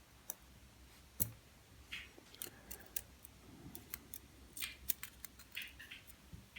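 Small, sharp metal clicks and ticks, scattered and irregular: the pins and springs of a padlock's pin-tumbler core being taken out and handled with small tools during disassembly.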